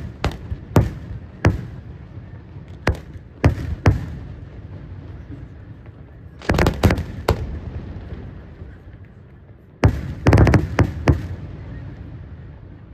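Aerial firework shells bursting overhead in irregular single bangs, with a rumbling echo between them. Two quick clusters come about halfway through and again near the end, then the bangs die away.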